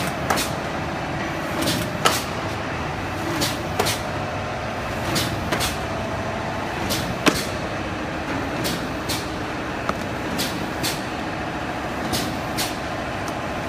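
High-speed tea box packing machine running with a steady mechanical noise, cycling with a pair of sharp clacks repeating about every second and three-quarters.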